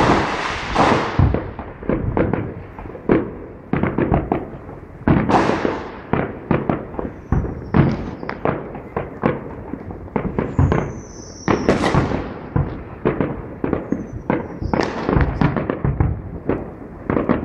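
Aerial firework shells bursting in a rapid, irregular series of bangs. A few brief whistles fall in pitch between them.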